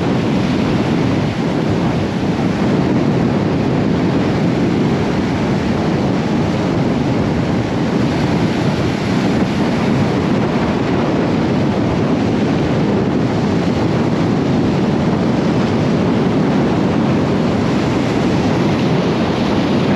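Steady wind buffeting the microphone, with surf washing up the beach underneath.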